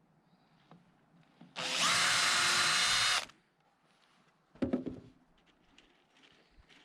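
Handheld power drill-driver running at a steady speed for about a second and a half, as in driving a screw into wood. About a second later comes a short knock or clatter.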